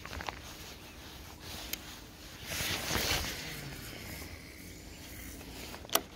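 Handling noise from a baitcasting rod and reel during a jerkbait retrieve: a few sharp clicks, the loudest near the end, and a rush of noise lasting about a second midway.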